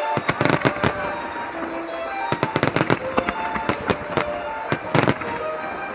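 Starmine fireworks shells bursting in quick clusters of sharp bangs, several clusters over the few seconds, over violin music playing a melody.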